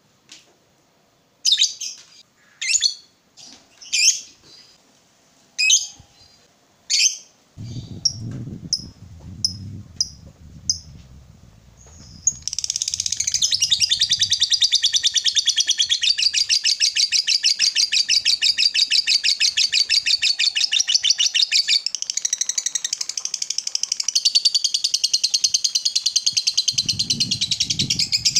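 Lovebird giving sharp, separate chirps for about the first twelve seconds, then breaking into a long unbroken chattering trill of rapid, evenly spaced notes, the 'ngekek panjang' that lovebird keepers prize, held for about fifteen seconds.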